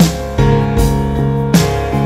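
Instrumental background music: sustained pitched notes with strongly accented chords struck at a steady pace.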